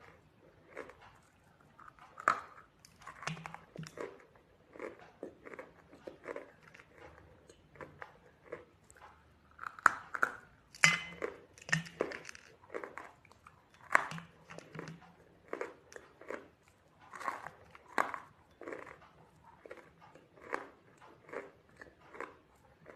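A person biting into and chewing something crunchy close to the microphone: an irregular run of sharp crunches, with the loudest bites near the middle.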